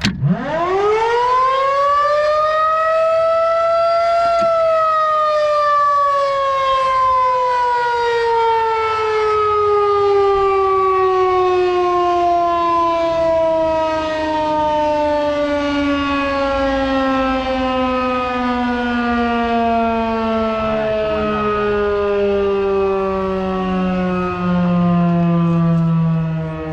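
Federal Signal 2001-SRNB electromechanical warning siren winding up quickly for about four seconds while its button is held. After release it winds down, its wail falling slowly and steadily in pitch.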